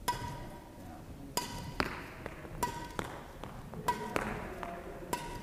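Badminton shuttles being struck, each stroke a sharp click with a short ringing ping, landing steadily about every second and a quarter as a shuttlecock feeding machine keeps up the supply. A few extra knocks fall between them.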